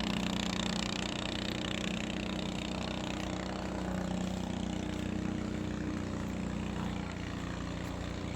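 An engine running steadily with a constant low hum, over a steady rush of noise.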